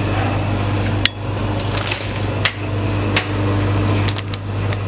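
Pouch packing machine running: the vibratory feeders of its two-head weigher keep up a steady low hum while the product is weighed. Sharp clicks and knocks come at uneven intervals, about six of them.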